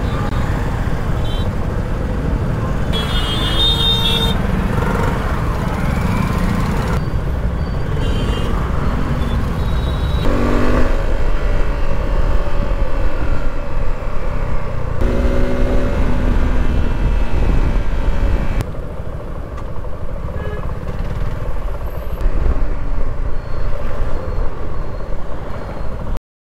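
Wind and engine noise from a Suzuki V-Strom SX 250's single-cylinder engine riding through city traffic, with other vehicles' horns honking several times. The sound cuts abruptly a few times from one riding clip to the next.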